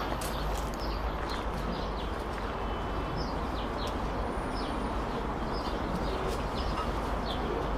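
Outdoor street-market ambience: a steady wash of background noise with scattered short, high chirps.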